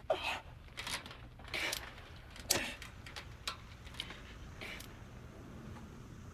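Close handling sounds: a run of sharp clicks and short rustles, about a dozen in five seconds, among them a lighter being struck and lit.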